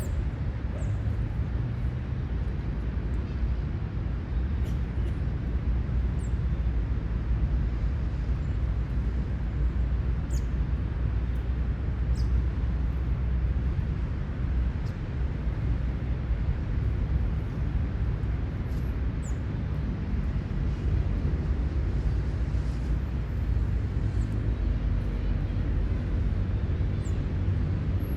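Outdoor park ambience: a steady low rumble with a few faint, brief high bird chirps scattered through it.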